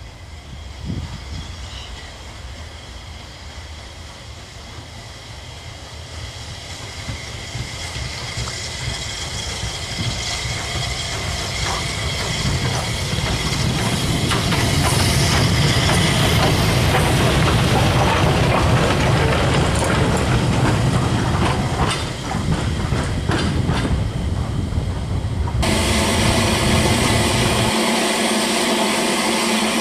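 Southern Railway S15 class steam locomotive No. 847 approaching and passing with its train. It grows louder, with clickety-clack from wheels over the rail joints and a hiss of steam. Near the end the sound changes suddenly to a steady sound with several pitches.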